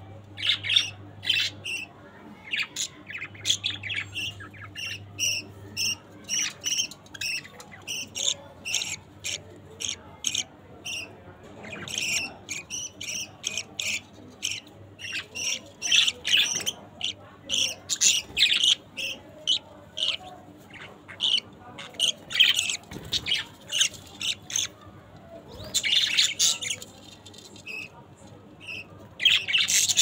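Young budgerigars chirping and squawking: quick runs of short, sharp calls, several a second, with brief gaps between runs. There is a denser run about four seconds before the end and another at the very end.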